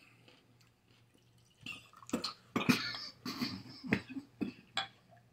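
A man coughing and clearing his throat in a short fit of several sharp coughs, starting about two seconds in, after moonshine-soaked pickle juice went down the back of his throat.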